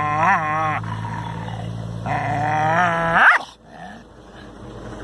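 Dog making long, wavering howl-like calls. The pitch sweeps up twice, and the second call rises sharply and cuts off about three and a half seconds in.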